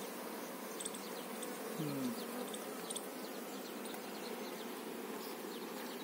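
Honey bees buzzing steadily over a brood frame lifted from an opened hive, the even hum of many bees at once, with one short buzz falling in pitch about two seconds in.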